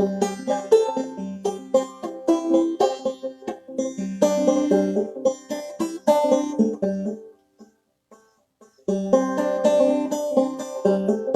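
Clawhammer banjo playing an old-time tune, a steady rhythm of plucked notes. The sound cuts out completely for about a second and a half past the middle, then the playing picks up again.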